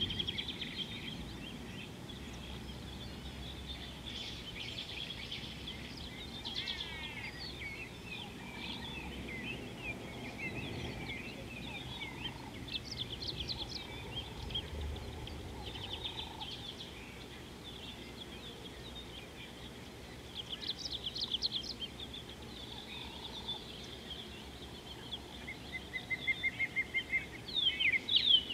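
Several wild birds chirping and trilling in a mixed chorus, with a burst of quick chirps about two-thirds of the way in and a louder, faster run of repeated notes near the end.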